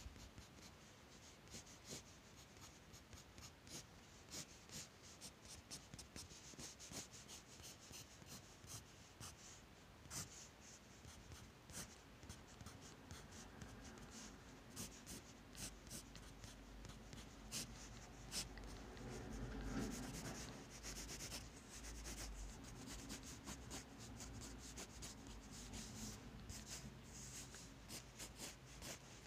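Faint scratching of a graphite pencil on sketchbook paper in many short, quick strokes as the pencil shades and hatches. There is a brief louder rustle about two-thirds of the way through.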